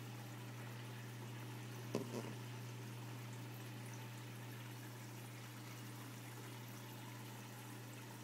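Turtle tank's aquarium filter running: a steady low hum with a constant wash of trickling water. A short sound stands out about two seconds in.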